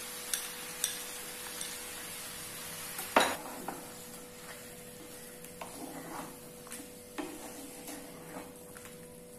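A bowl and a spatula knocking and scraping against a nonstick frying pan as a thick puree is added and stirred into cauliflower and chicken, over a low sizzle. The loudest is a single sharp knock about three seconds in, followed by lighter scrapes.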